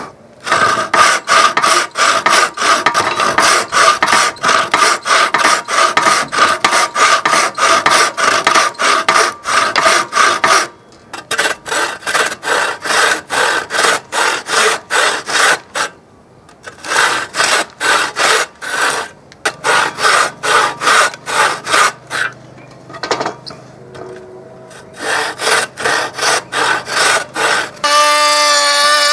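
Hand frame saw cutting through a wooden board in fast, even back-and-forth strokes, with a few short pauses. Near the end a cordless trim router starts up and runs with a steady whine.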